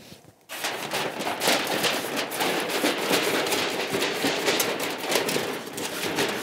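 A large sheet of Rosco Cinefoil, black aluminium foil, crinkling and crackling as it is handled and cut with scissors. The crackle starts about half a second in and keeps going as a dense run of small sharp crackles.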